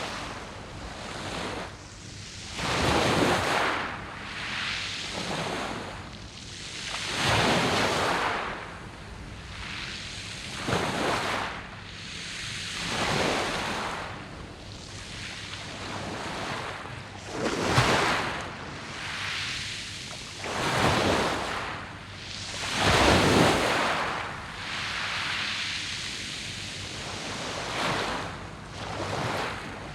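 Sea waves breaking on a pebble beach of round stones, surging in and washing back every few seconds.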